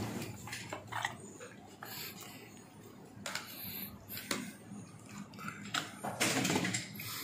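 Scattered light clicks and scrapes of a metal fork against a plastic food container, with paper packaging being handled.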